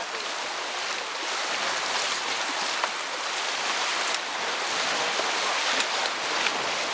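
Rushing river water around an inflatable raft running rapids: a steady rush of whitewater with a few faint splashes.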